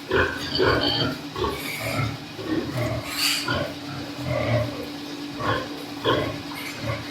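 A group of white pigs on a farm grunting and squealing in many short, irregular calls, with one louder high squeal about three seconds in.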